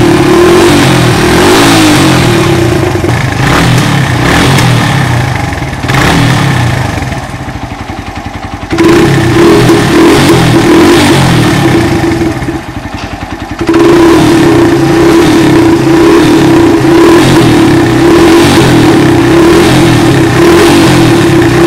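Motorcycle engine running loudly with a steady, droning tone over its exhaust beat. It drops back twice and is revved straight up again each time.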